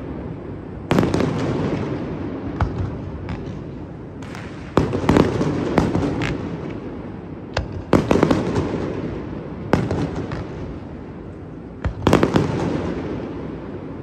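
Aerial firework shells bursting in a display: a heavy boom every three to four seconds, each trailing off in a long rumble, with smaller cracks and pops between them.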